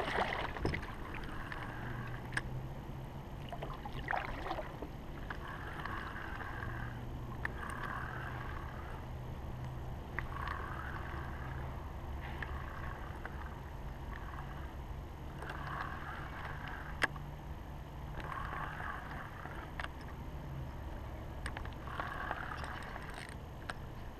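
A kayak paddle splashes into the water at the start, then water washes against a plastic kayak's hull again and again, every two to three seconds, over a low steady hum, with a few small knocks.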